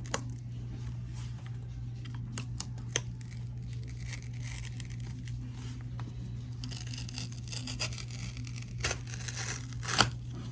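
Kindle box packaging being torn open by hand, a struggle to get open: ripping and crinkling with scattered sharp clicks, and longer stretches of tearing about four seconds in and again around seven to eight seconds.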